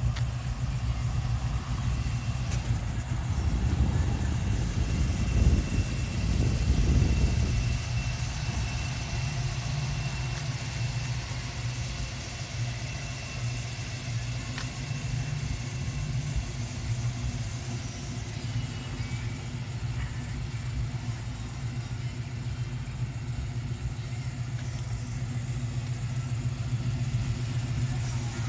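A 1972 Dodge Dart's engine idling with a steady low rumble. It picks up briefly, rising and falling about four to seven seconds in, then settles back to idle.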